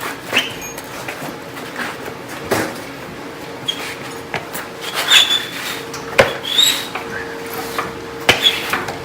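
Hand tools clanking and knocking on metal car parts during repair work, with a few short, bright metallic rings in the middle.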